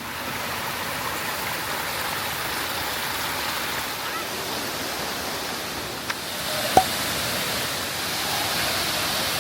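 Banyumala Twin Waterfalls' falling water making a steady rushing noise, louder about two-thirds of the way through. A short click about six seconds in and a sharp knock just before seven seconds.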